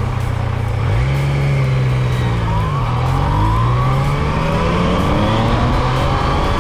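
Yamaha MT-09 inline-three motorcycle engine under way: the engine note lifts about a second in, sinks near three seconds in, then climbs steadily as the bike accelerates.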